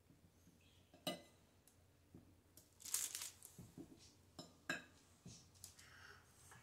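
Faint tabletop handling sounds: a few sharp clicks as cookies are set down on a ceramic plate, and a brief crinkle of parchment paper about three seconds in.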